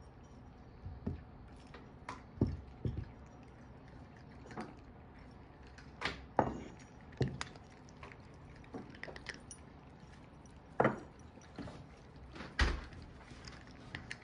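Several cats eating dry kibble from raised ceramic bowls: scattered crunches and clicks at irregular times, with a few louder knocks.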